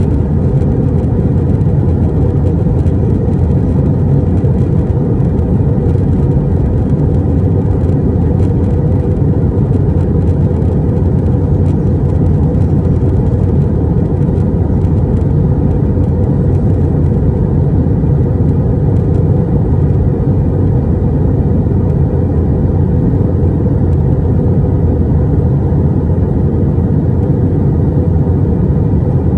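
Steady low roar inside an Airbus A320 airliner's cabin.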